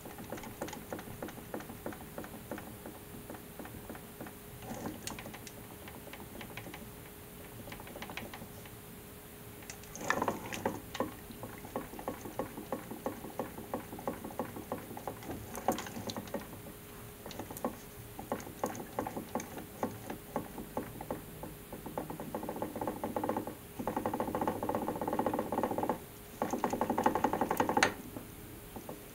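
Bicycle crank turning with a repeated clicking rattle, the rattle that the owner is trying to show as a fault. It grows into louder stretches of dense rattling about ten seconds in and again over the last several seconds, with a brief break near the end.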